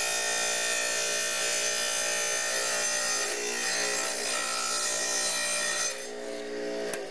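Wet tile saw running and cutting through a ceramic wall tile, a steady whine with a grinding edge; the sound drops in level about six seconds in as the cut ends.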